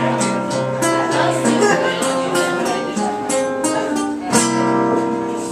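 Live folk music: strummed acoustic guitar and a hand drum, with a voice singing long held notes.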